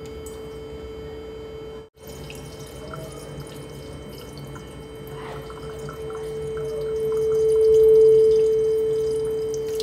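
A steady 440 Hz pure tone from a phone's tone-generator app, sounding over the open mouth of a thermos bottle. It cuts out for an instant near two seconds, then swells louder from about six seconds to a peak near eight and eases off. The swell is the air column above the water coming into resonance with the tone.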